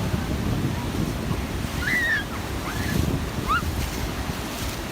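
Ocean surf breaking, with wind buffeting the microphone as a steady low rumble. A few short high-pitched calls cut through, about two seconds in and again past the middle.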